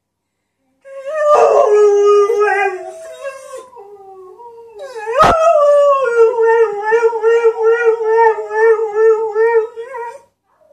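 Greyhound howling: a first howl from about a second in that slides down in pitch, then a longer howl from about five seconds in whose pitch wavers up and down about twice a second. There is a sharp knock at the start of the second howl.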